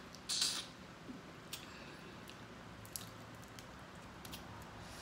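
A person eating seafood boil: a wet bite about half a second in, then quiet chewing with a few small clicks.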